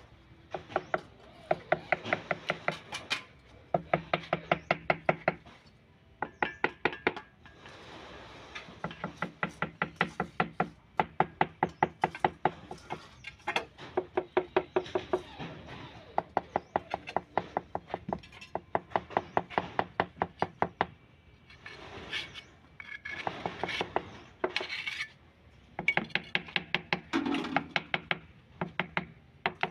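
A small handheld tool tapping rapidly on ceramic tiles laid on a concrete slab, about five sharp knocks a second in runs of one to three seconds with short pauses between, each knock ringing briefly.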